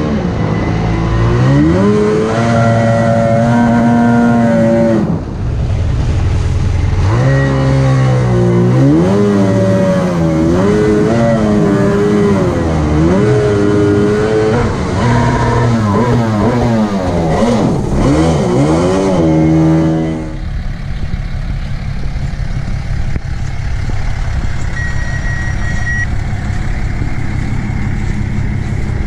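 Jet-drive outboard on a jon boat under way, its pitch rising and falling over and over as the throttle is worked, with water rushing past. After about twenty seconds it gives way to a steadier, lower engine rumble.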